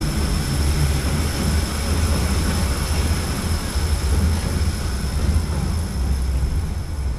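Steady rumble of the DisneySea Electric Railway's trolley-style train running along its elevated steel bridge track.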